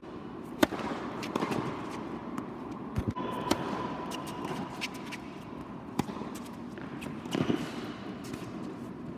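Tennis rally on an indoor hard court: a string of sharp strikes as rackets hit the ball and it bounces, spaced about a second or so apart, the loudest about two-thirds of a second in.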